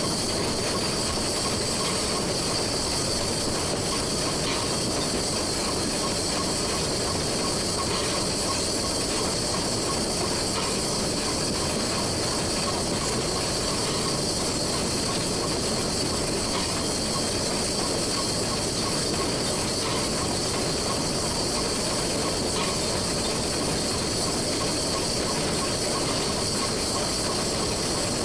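A 1925 La Meuse steam locomotive heard from its cab while running: a steady hiss of steam over the running noise of the train on the track, with a few faint clicks now and then.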